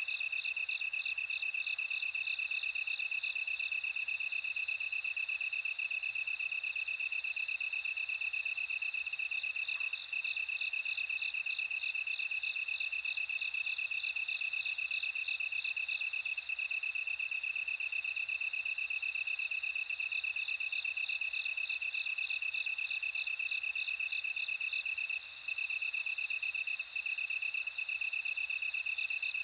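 Japanese bell crickets singing: a steady, pulsed chirring chorus, with louder ringing trills that swell in and fade several times.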